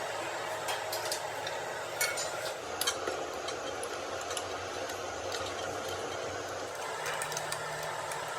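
Light metallic clicks and clinks, as of tools handling metal parts, scattered over a steady hum, with most of the clicks in the first three seconds.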